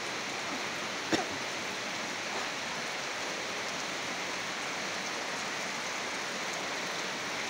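Heavy rain falling steadily on a garden's grass and plants, an even hiss, with one sharp tap about a second in.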